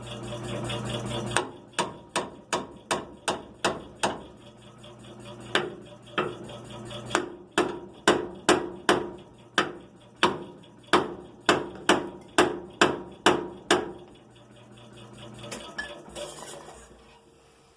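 Hammer blows on metal during front ball-joint removal. First comes a run of about seven quick strikes, then two lone blows, then a steady run of roughly two to three strikes a second that stops about fourteen seconds in.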